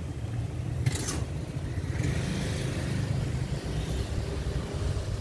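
City street traffic: a motor vehicle passing, over a steady low rumble, with a brief hiss about a second in.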